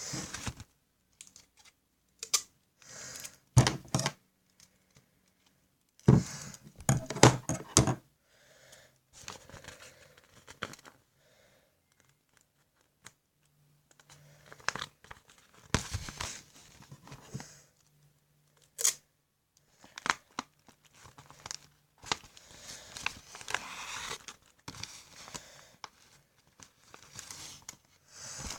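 Paper being folded and creased, crinkling in irregular bursts, with short sharp tearing sounds typical of sellotape being pulled off the roll and torn.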